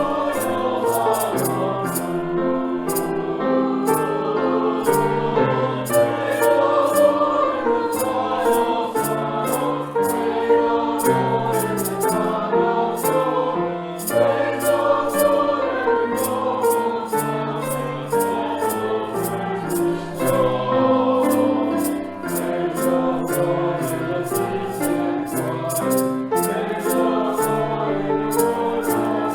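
Church choir singing an anthem in several parts, the voices moving together in chords over a stepping bass line.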